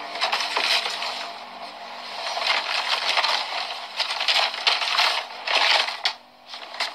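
Brown paper envelope rustling and crinkling in uneven spells as banknotes are pulled out of it and handled.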